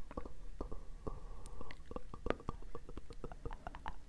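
Close-miked ASMR trigger sounds: irregular soft clicks and taps, several a second.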